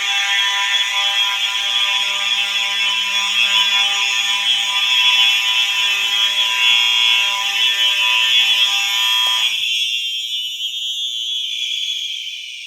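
Several fire alarm horns sounding together on a system test. The lower-pitched sounder cuts off suddenly about nine and a half seconds in, leaving a higher-pitched tone that fades away near the end.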